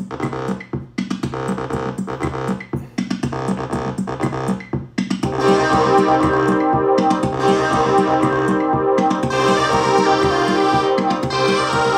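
Several Korg Volca synthesizers playing sequenced patterns together through a Volca Mix. A choppy rhythmic pattern comes first. About five seconds in, fuller sustained chords join and it gets louder.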